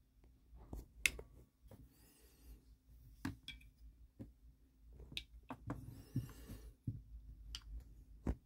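Folding knives and loose pocket clips being handled on a mat: about five sharp clicks and taps of small metal parts, the loudest about a second in, with soft scuffing and rustling between them.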